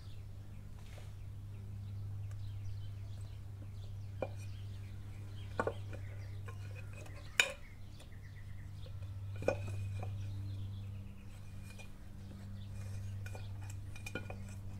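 A handful of sharp metal clinks and taps from loose engine parts and tools being handled at a motorcycle's cylinder head, the loudest about halfway through, over a steady low hum.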